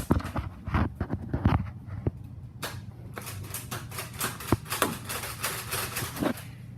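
A string of irregular sharp clicks and knocks, a dozen or so spread unevenly, over a steady low hum.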